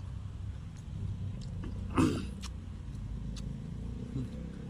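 A person chewing food close to the microphone, with faint mouth clicks and one louder mouth noise about two seconds in, over a low steady hum.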